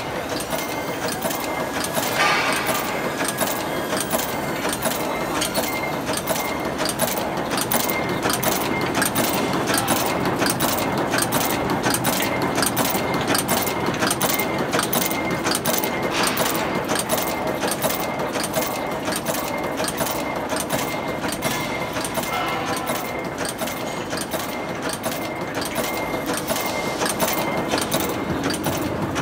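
Blind rivet making machine running, heading aluminium rivet bodies from wire in a steady mechanical clatter with a regular stroke about twice a second.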